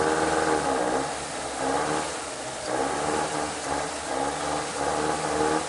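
Off-road 4x4's engine revving in repeated surges, each rising in pitch and then falling back, about every second. The vehicle is stuck in deep water and is trying to pull itself out under engine power because its winch won't turn.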